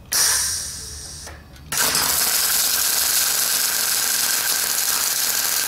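Electric arc welding on the steel exhaust pipe where it joins the muffler inlet. A brief arc strike just after the start dies away within about a second, then the arc is struck again about 1.7 s in and runs as a steady hiss for the rest.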